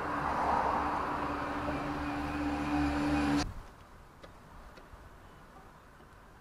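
Motor vehicle noise: a steady hum over a rushing sound that cuts off suddenly just past halfway. After that there is a quiet background with a few faint ticks.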